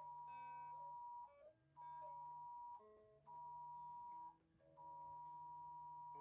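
A steady, high single-pitched beep that sounds for about a second at a time, four times with short gaps, over faint lower notes.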